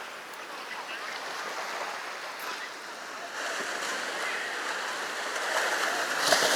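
Sea waves breaking and washing up on the beach, a steady rush of surf that swells louder about three seconds in and again near the end.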